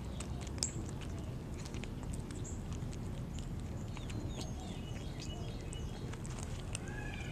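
Kittens eating dry kibble from a plate: a stream of small, sharp crunching clicks, with short high chirps in the background.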